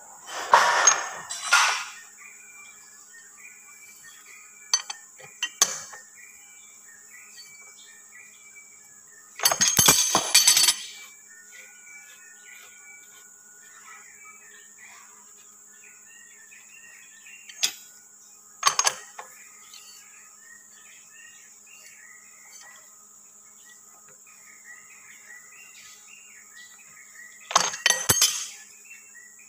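Metal hand tools and parts clinking and clattering against a differential's pinion gear and housing in about six separate bursts, the longest a second-long clatter about ten seconds in. A steady high insect drone and scattered bird chirps continue underneath.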